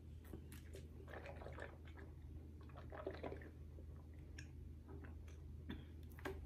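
Faint mouth sounds of drinking and swallowing water, with a few sharp clicks near the end, over a steady low hum.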